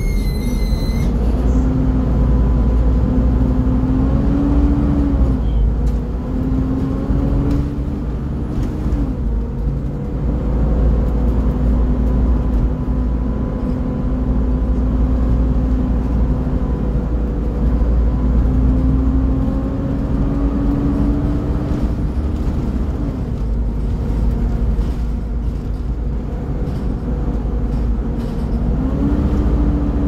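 Volvo B7TL double-decker bus's D7C diesel engine under way, with a hoover-like whine over a steady low rumble. The whine climbs slowly in pitch and drops back several times, about 5, 9 and 23 seconds in, as the ZF Ecomat automatic gearbox changes up.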